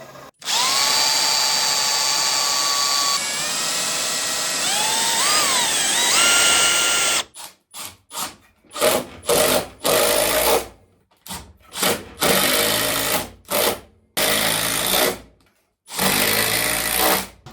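Power tool motor cutting a recess into walnut for a floating-shelf bracket. It runs continuously for about seven seconds, its pitch sagging and recovering under load, then runs in a string of short bursts of about half a second to a second each.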